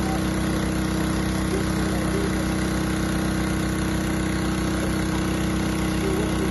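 Engine running steadily at a constant speed, an even drone with no change in pitch or loudness.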